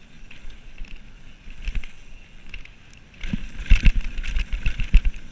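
Mountain bike rolling down a rough dirt trail, heard through a camera mounted on the rider: a steady rush with light rattles, then from about three seconds in a quick run of hard knocks and clatter as the bike hits rough ground.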